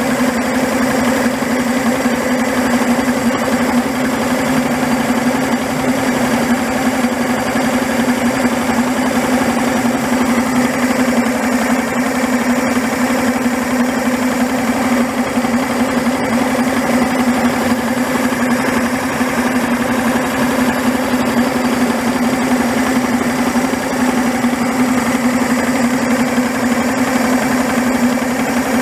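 Yamaha HPDI 200 hp two-stroke V6 outboard idling steadily with its cowling off, so the bare powerhead is heard directly.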